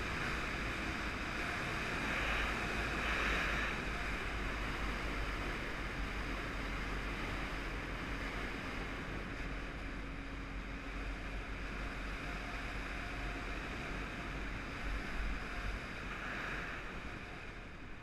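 Wind buffeting the microphone on a Jawa 638 motorcycle at steady road speed, with the bike's 350 cc two-stroke twin engine running faintly beneath it.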